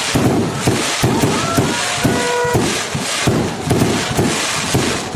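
Fireworks going off in rapid succession: a dense string of bangs and crackles, roughly two or three a second. A short steady tone sounds briefly about two seconds in.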